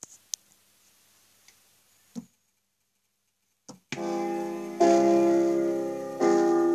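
Near silence with a few small clicks and a knock, then about four seconds in piano music starts, held chords struck and slowly fading. It plays from a phone through an old boombox's amplifier and speaker rebuilt into a wooden crate.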